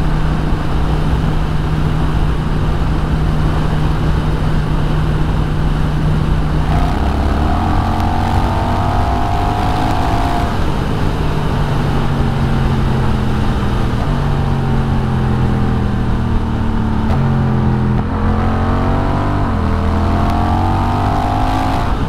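Honda Rebel 1100's parallel-twin engine at highway speed through a Coffman's Shorty slip-on exhaust, with wind noise. About seven seconds in the engine note climbs as the bike accelerates, then steps down and eases off.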